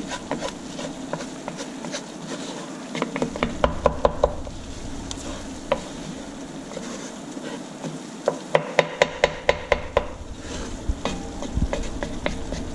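Flour being stirred into melted butter and sautéed onions, making a roux, with a soft sizzle under the stirring. Two runs of quick clicking taps from the stirring utensil come about three and a half seconds in and again about eight and a half seconds in.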